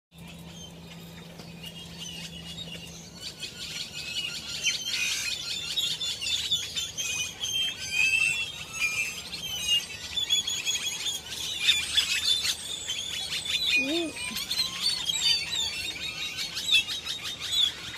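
A dense chorus of many small birds chirping and chattering, the calls overlapping one another.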